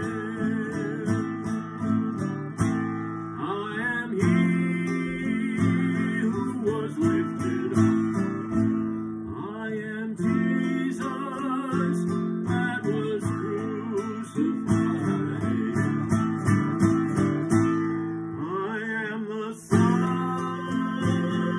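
A man singing with vibrato to his own strummed classical guitar, with a brief break in the strumming near the end.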